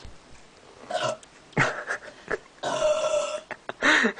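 A person burping: one long, steady belch of about a second, roughly two and a half seconds in, with a few short sounds before it and a shorter burst near the end.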